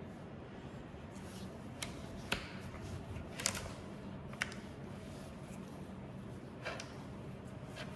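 Scattered light clicks and taps of parts being handled as the drive V-belt is fitted onto a belt sander's pulleys, over a low steady hum.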